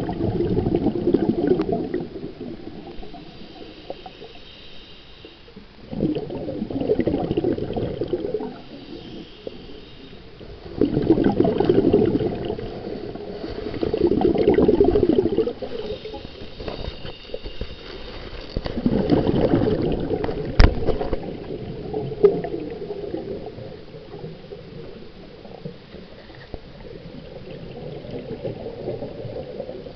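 Scuba diver breathing through a regulator underwater: bursts of bubbling exhaust every four to five seconds, with a fainter hiss of inhaling in between. A single sharp click about two-thirds of the way through.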